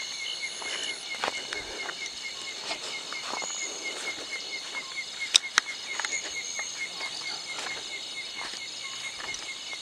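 Night insect chorus, crickets among them: a steady high trilling with a regular chirp repeating about four times a second. Two sharp clicks cut through about five and a half seconds in.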